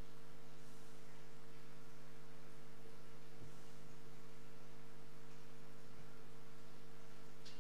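Steady electrical mains hum, a few low tones held evenly, with a couple of faint clicks about halfway through.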